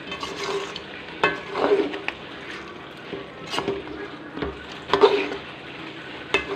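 A spoon stirring chicken gravy in a pan, knocking and scraping against the pan about five times over a steady sizzle.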